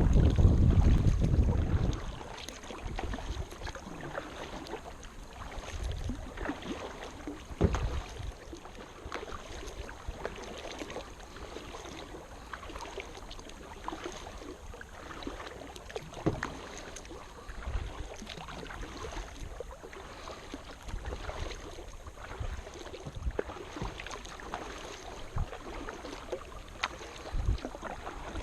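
Kayak paddle strokes: the blades dipping and splashing in the water every second or two, with drips in between. A gust of wind buffets the microphone for the first two seconds.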